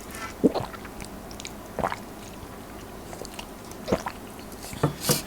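A person chewing a mouthful of muffin close to the microphone, with a few short wet mouth smacks spread out among quieter chewing.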